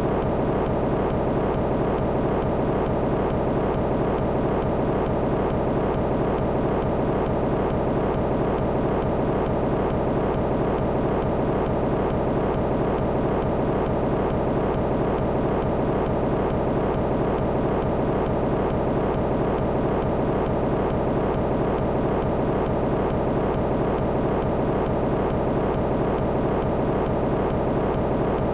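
Steady, unchanging drone of dense noise, strongest in the low-middle range, with no breaks or events: an experimental film's noise soundtrack.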